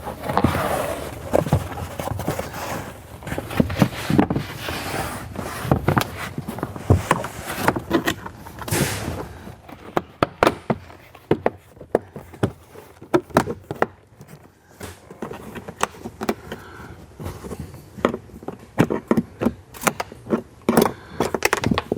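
Handling noises of hands working inside a car: scattered sharp clicks and knocks, with a few rustling swishes and scrapes.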